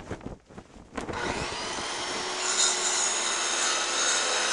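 A few knocks, then from about a second in a power tool running steadily, a dense grinding, sawing noise of renovation work on a house.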